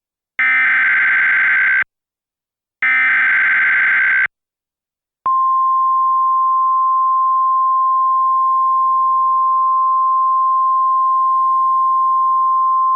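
Emergency Alert System SAME header: two bursts of screeching digital data tones, each about a second and a half, with short gaps between them. About five seconds in, a single steady alert tone starts and holds, the weather-radio attention signal that comes before a civil emergency message.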